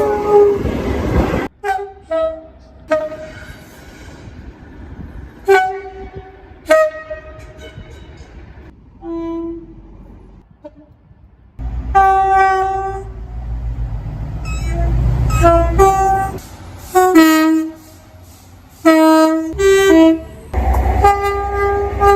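A string of train horn blasts from several different trains, cut one after another: short single toots and longer sounds of two- and three-note chords, with a train's running noise underneath some of the longer ones.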